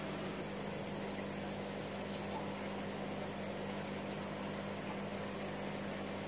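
Aquarium sponge filter bubbling steadily as air rises through the tank water, over a constant low hum.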